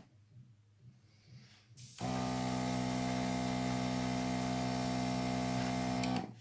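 Airbrush spraying paint, driven by its small compressor. The compressor's steady hum and the hiss of air start about two seconds in and run on, dropping out briefly near the end.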